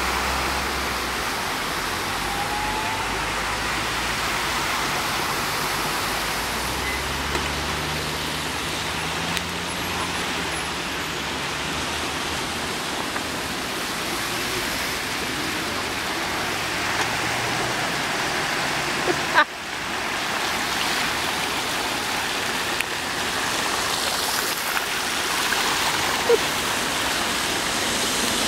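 Steady rush of floodwater, with a motor vehicle's engine running low under it for the first half. A brief thump and momentary drop-out come about two-thirds of the way through.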